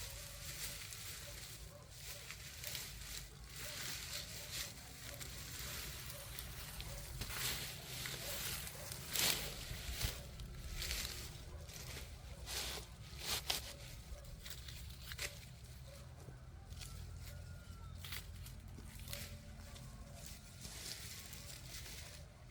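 Corn leaves and husks rustling and tearing as corn is harvested by hand, with irregular crackles and a few sharp snaps, the loudest about nine, ten and thirteen seconds in.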